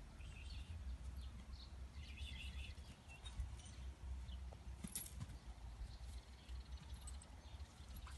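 Quiet outdoor ambience: a steady low rumble of wind on the microphone, with a few faint, short bird chirps scattered through it.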